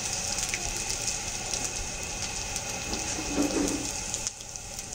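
Cumin seeds and ginger frying in hot oil in a large kadhai: a steady sizzle with many small crackling pops.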